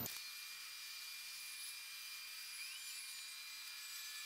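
Faint, high-pitched hiss and whine from the AN/UGC-74B communications terminal running through its internal self-test, played twenty times fast so that its running hum is shifted up into a steady high whine with nothing low left in it.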